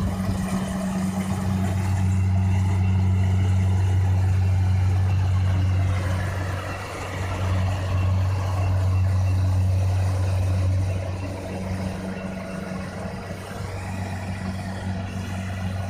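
Rice combine harvester running steadily: a deep, even engine hum with broad mechanical noise over it, easing slightly in loudness for a while after the middle.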